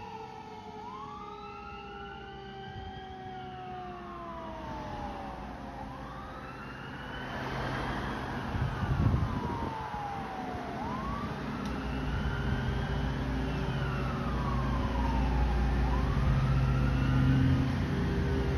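Fire engine siren in a slow wail, its pitch rising and falling every few seconds. From about halfway through, passing cars' engine and road noise grows louder, with one close pass about nine seconds in.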